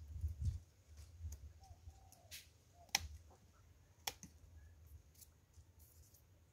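Quiet outdoor background with a low rumble, two sharp clicks about three and four seconds in, and a faint short whistle-like call near two seconds.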